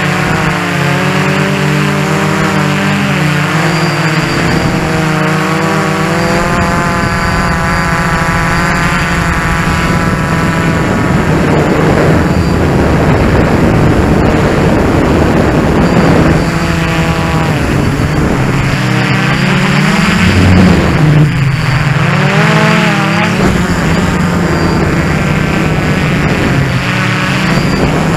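DJI Flamewheel F450 quadcopter's brushless electric motors and propellers running loudly, heard from on board, a steady hum whose overtones swing up and down in pitch several times as the motor speeds change.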